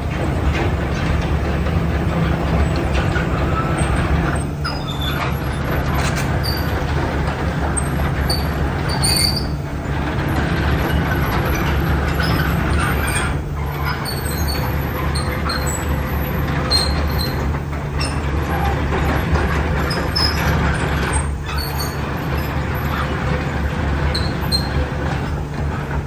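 Cat 320C hydraulic excavator's diesel engine running steadily, with a deep, even hum and, now and then, faint high squeaks.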